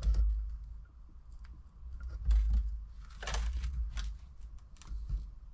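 Scattered clicks, scratchy rubs and low bumps of hand work with a sealant gun and tube, as silicone is applied around a headlight lens.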